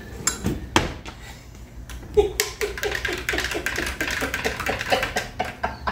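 A spoon stirring juice in a glass, clicking and tapping against the sides in a quick, uneven run of strokes.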